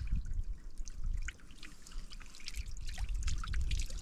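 Water trickling and splashing, heard as many small scattered clicks over a low rumble.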